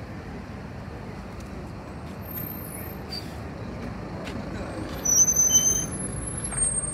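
Inside a city bus: steady low engine rumble, with a louder moment about five seconds in that carries several short high-pitched squealing tones.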